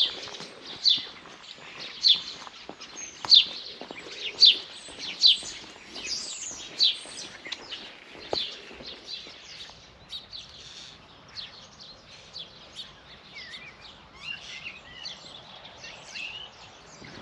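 Birds chirping: a run of loud, sharp, high chirps about one a second, giving way about halfway through to a busier scatter of quieter chirps.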